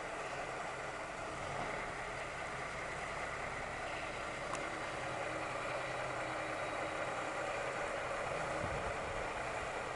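Volvo heavy truck's diesel engine running at low speed as the truck creeps closer, gradually getting louder.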